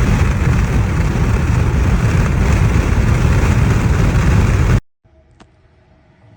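Strong storm wind buffeting the microphone, a loud rushing roar with heavy low rumbling gusts. It cuts off abruptly a little under five seconds in, leaving a much quieter background.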